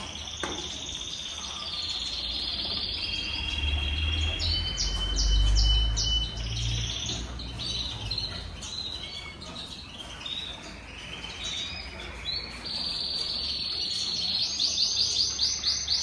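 Caged songbirds chirping and singing, with several overlapping twittering phrases and fast trills. A low rumble comes in about four seconds in and fades near eight seconds.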